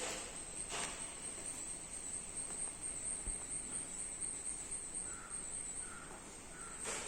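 Crickets chirring steadily at a high pitch in the background, with a sharp click about a second in.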